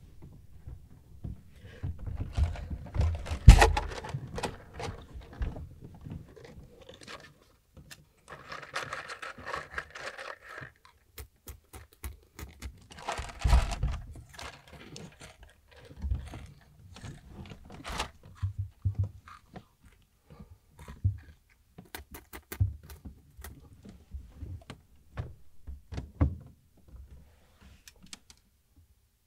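Crunching of Jagarico potato snack sticks being chewed, mixed with scattered clicks, knocks and rustling from the paper snack cup being handled and a body shifting under the kotatsu. The loudest knock comes a few seconds in.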